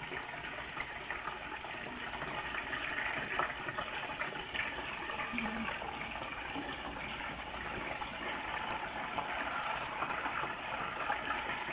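Battered frog legs deep-frying in a pot of hot oil: a steady sizzling, crackling hiss, with a few light clicks of a fork and slotted spoon in the pot.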